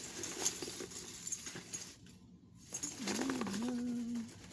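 Costume jewelry being rummaged through by hand: beads, chains and metal pieces clicking and rustling against each other. About three seconds in comes a short, low, steady pitched tone lasting just over a second.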